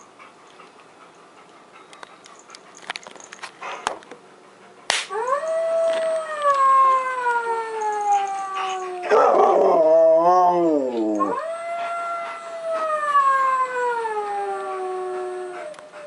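Animatronic Halloween wolf decoration playing a recorded wolf howl through its base speaker: after a sharp click about five seconds in, two long howls that slide slowly down in pitch, with a shorter, rougher, wavering cry between them.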